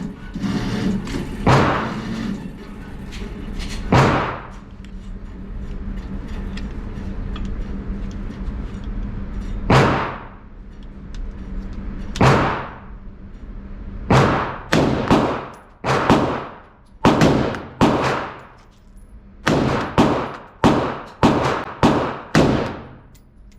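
Semi-automatic AR-15-type rifle fired shot by shot, each report followed by a short echo. The first few shots are several seconds apart; after the middle they come in quicker strings, roughly one or two a second.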